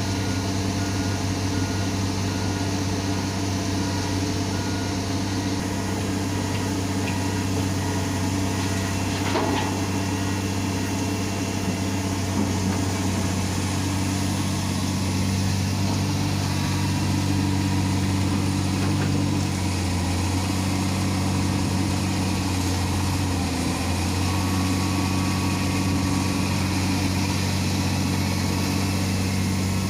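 Heavy diesel engine of a Komatsu excavator running steadily at work, with small shifts in pitch about two-thirds of the way through and a faint knock around a third of the way in.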